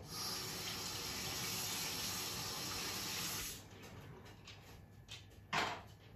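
Kitchen tap running into a sink, a steady hiss for about three and a half seconds, then turned off. After it, faint sizzling and crackling of salmon fillets frying in oil, and a single short knock near the end.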